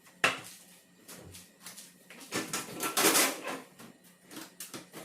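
Containers and jars knocking and clattering as items are handled and taken out of a refrigerator. There is a sharp knock near the start and a longer noisy rustle about two and a half to three and a half seconds in.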